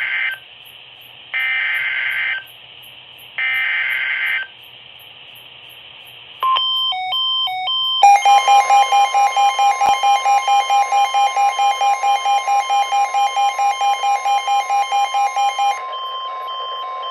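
Emergency Alert System SAME header: three short bursts of screechy data tones about a second apart, marking the start of a new weather-radio warning. A few seconds later comes the steady NOAA Weather Radio warning alarm tone, with a rapid pulsing beep of about four or five a second over most of it that stops shortly before the end.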